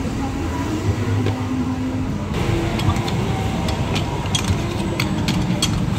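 Steady background traffic rumble. After about two seconds, a run of sharp metallic clicks and knocks comes from a metal hand-lever juice press being worked on halved fruit.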